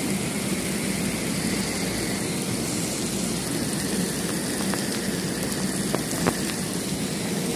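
Heavy rain pouring onto wet pavement: a steady, dense hiss, with a few sharp ticks in the second half.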